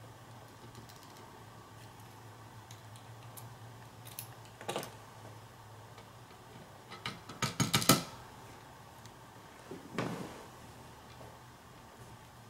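Small metal clicks and taps from a pin-tumbler lock cylinder being taken apart and its pins handled: a brief click about halfway in, a quick rattling run of clicks soon after that is the loudest, and one more click near the end, over a faint steady hum.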